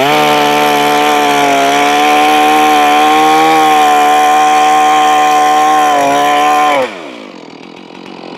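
Stihl MS461 two-stroke chainsaw held at steady full throttle for about seven seconds, then the throttle is let off and the revs fall away toward idle.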